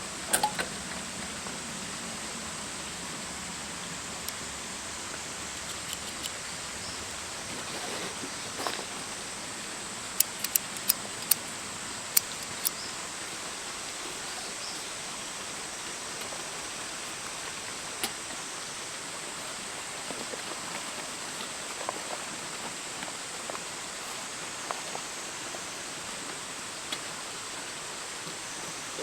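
Steady outdoor hiss with scattered sharp clicks and pops, including a quick run of about six clicks some ten to thirteen seconds in.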